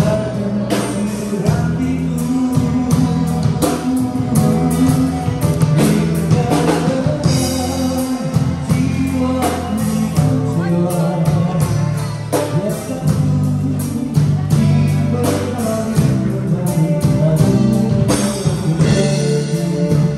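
A live band playing: a singer over guitar, bass and drums with a steady beat.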